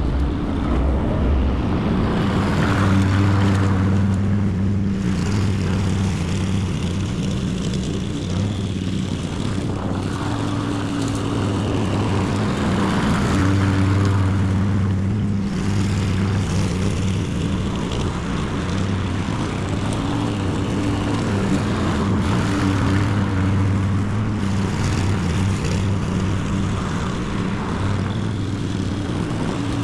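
Honda petrol walk-behind lawn mower's single-cylinder four-stroke engine running steadily while cutting grass. The drone swells louder and fades back about every ten seconds as the mower passes near and moves away again.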